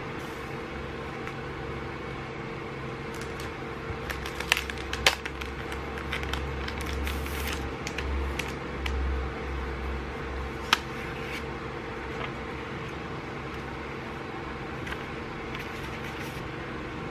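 Thin paper notebook inserts handled on a table: soft paper rustles and a few sharp taps and ticks, the loudest about four and five seconds in and again near eleven seconds, over a steady low background hum.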